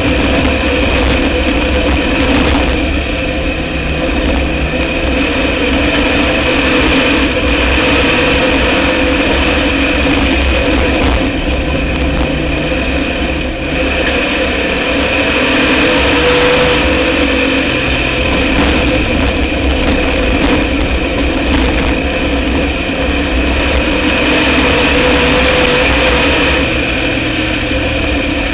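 Dirt-track race car's engine running, heard from a camera mounted on the car: loud and steady, with small rises and falls in pitch.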